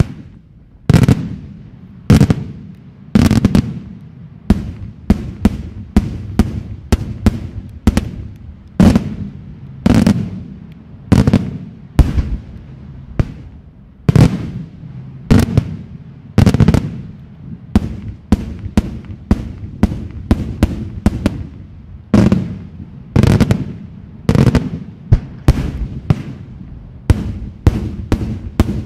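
Daytime aerial fireworks bursting in a long, irregular volley of loud sharp bangs, at times several a second, each trailing a low rumble.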